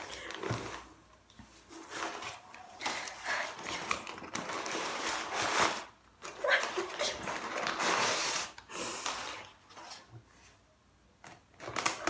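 Crumpled brown kraft packing paper rustling and crinkling as it is pulled out of a cardboard box, in irregular bursts with short pauses.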